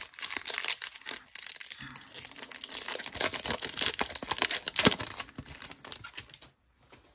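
Foil trading-card pack wrapper being torn open and crinkled in the hands: a dense crackling rustle with a sharp crack about five seconds in, dying away near the end.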